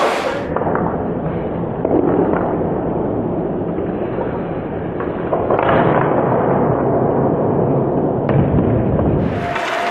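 Ice hockey game sounds in a rink: a steady noisy rumble with a few sharp clacks of sticks and puck. It turns muffled about half a second in and clears again near the end.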